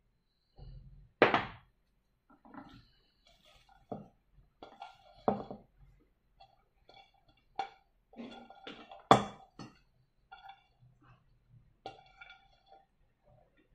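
Shredded vegetables being mixed into flour batter in a stainless steel bowl: soft scraping and rustling with sharp knocks of the plate and spoon against the metal bowl, the loudest about a second in and about nine seconds in. Faint plucked background music joins in the second half.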